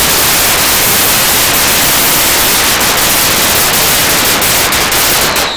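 A long string of firecrackers going off so densely that the bangs merge into one loud, continuous crackling hiss, dropping away near the end.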